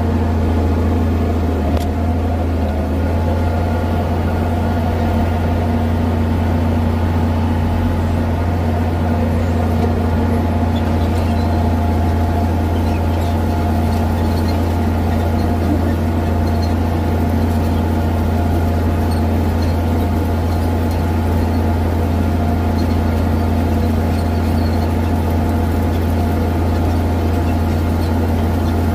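Tractor engine running steadily, heard from just behind the hood, with a deep, even drone that does not change in pitch or level.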